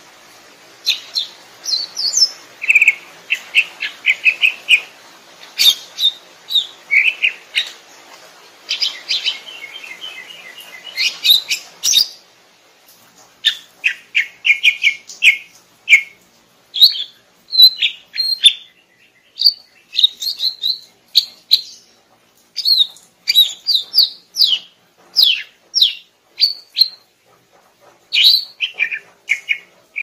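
Green leafbird (cucak ijo) singing a fast, varied song of short chirps, quick trilled runs and sharp whistled notes with brief pauses between phrases. About twelve seconds in, the recording changes and the notes become crisper and more spaced.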